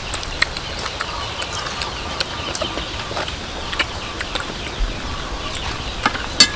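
Eating sounds: scattered short smacks and clicks from chewing and a spoon in a bowl of chili sauce, over faint bird calls.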